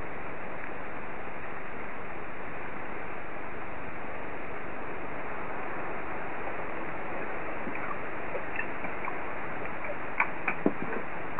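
Heavy rain falling steadily, an even hiss. A few sharper taps come just before the end.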